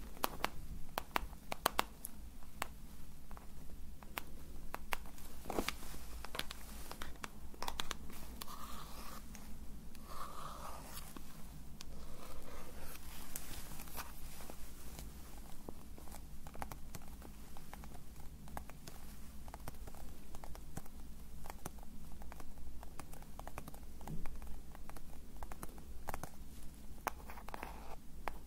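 Close-miked handling of small pebble-shaped soaps: a dense, continuous run of crisp taps, scratches and crackles.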